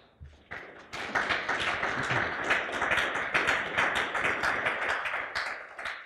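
Audience applauding, swelling about a second in and fading away near the end.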